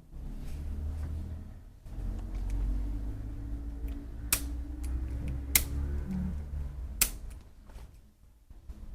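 Three sharp cracks a little over a second apart, over a low rumble: joints popping during a chiropractic adjustment.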